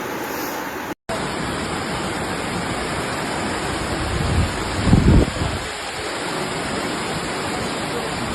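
Floodwater rushing in a steady hiss, cut short about a second in and then running on. A low rumble swells up briefly about halfway through and is the loudest part.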